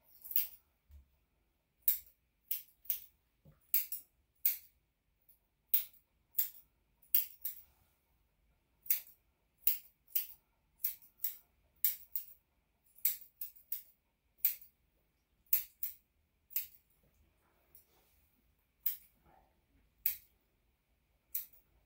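Grooming scissors snipping the hair around a Yorkshire terrier's paw: a long series of short, crisp metallic snips, one or two a second, with brief pauses between runs.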